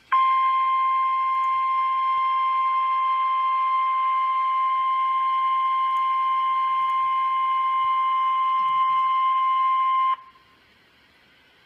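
NOAA Weather Radio 1050 Hz warning alarm tone, sounded as the weekly test of the warning alarm. One loud, steady high tone holds for about ten seconds and then cuts off abruptly.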